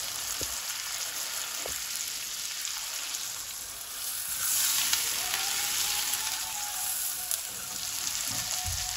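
Beef pieces with onion and ginger-garlic paste sizzling as they fry in hot mustard oil in a wok, stirred with a silicone spatula. The sizzle is a steady hiss that swells briefly about four to five seconds in, with a few light knocks of the spatula.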